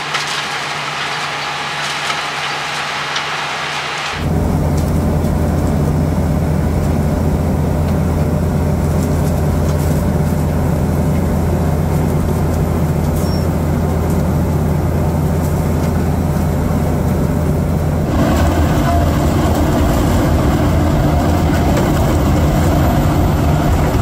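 Fendt Vario 828 tractor engine and Lockwood potato harvester running steadily under load while digging potatoes: a low, even engine drone with machinery noise. The first few seconds hold only a higher hiss, and the drone comes in about four seconds in.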